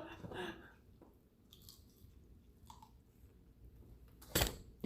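Faint mouth noises of someone chewing chicken close to the microphone, with a single sharp louder sound near the end.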